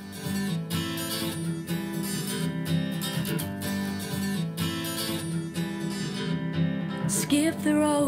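A guitar-led pop song with steady strumming plays through a pair of Creative T40 Series II desktop speakers, picked up by a microphone in the room. A woman's voice begins singing near the end.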